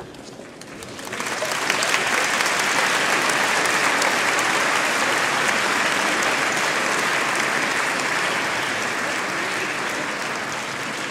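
Audience applause that swells about a second in, then goes on steadily, easing slightly near the end.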